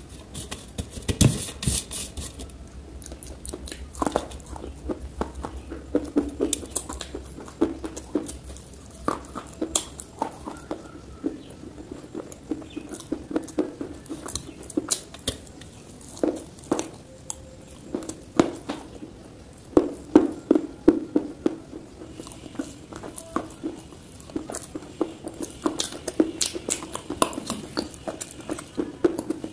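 Close-up crunching and chewing of dry, crumbly multani mitti (Fuller's earth clay) chunks: sharp, irregular crunches in clusters, some much louder than others.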